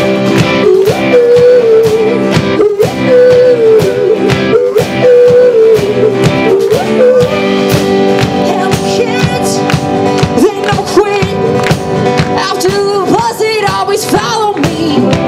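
Live band playing a song: strummed guitar chords under a sung melody line.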